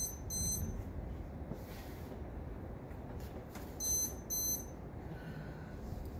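Lightning detector beeping twice, twice over: one double beep at the start and another about four seconds in. Each high, shrill double beep signals a lightning strike within 15 miles.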